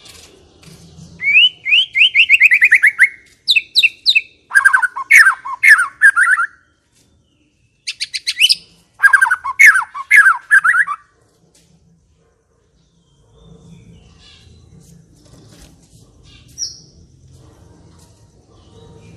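White-rumped shama (murai batu) song: several loud phrases of rapid repeated notes and trills over the first eleven seconds or so. It then falls quiet, leaving a faint low hum and a single brief high note.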